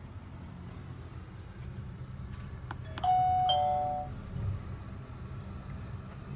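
A doorbell button is pressed on a SkyBell HD video doorbell, with a click about three seconds in. A two-note ding-dong chime follows, falling in pitch and lasting about a second. A steady low rumble runs underneath.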